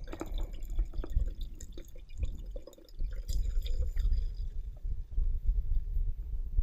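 Runny egg-powder omelette mixture poured from a plastic bottle into a stainless steel pot, splashing and dripping. Wind rumbles on the microphone from about halfway.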